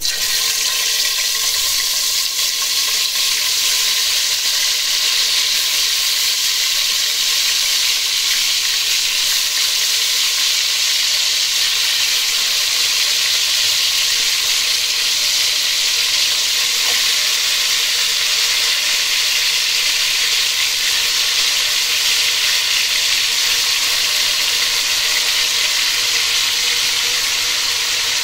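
Marinated chicken pieces sizzling steadily in hot oil in a large aluminium pot as more pieces are laid in.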